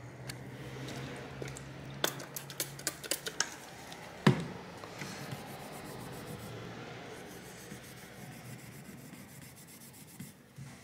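Tissue paper wet with isopropyl alcohol rubbing over a graphics card's GPU die, wiping off old thermal paste. A run of light clicks comes about two seconds in, and a sharper knock a little after four seconds.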